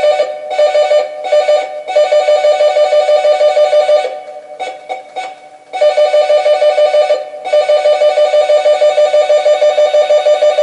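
Electronic doorbell sound effect: one high tone pulsing rapidly, about seven times a second, in long runs. It breaks off briefly a few times, and for nearly two seconds about four seconds in.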